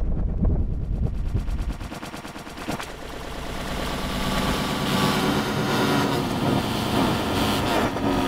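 A shouted 'Pancake!' voice clip, played in reverse and heavily distorted by stacked audio effects into a harsh, rapid stuttering buzz. It drops in level about two seconds in and builds back up.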